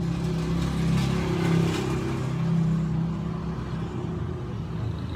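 A steady low mechanical hum, like an engine or motor running, swelling slightly a couple of times.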